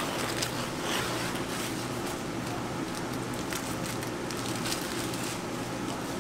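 Baking paper crackling and rustling as it is peeled off a baked coffee sponge sheet, over a steady low hum.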